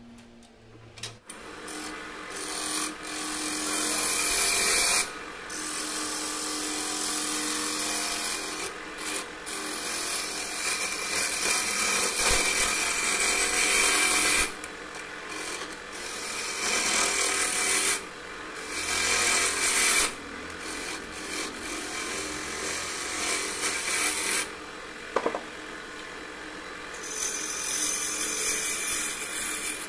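Steel turning tool cutting into a hard mastic-wood blank spinning on a wood lathe: a rough scraping hiss of shavings in passes that break off and start again several times, over the lathe's steady hum.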